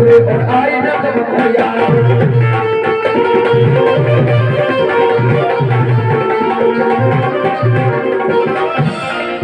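Harmonium playing a melody of held notes over a steady hand-drum rhythm with deep bass strokes: an instrumental passage of a devotional bhajan.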